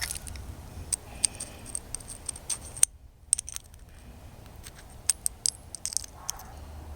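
Irregular sharp clicks and light metallic clinks of hand tools and parts being handled while spark plugs are serviced on an engine, broken by a brief silence about three seconds in.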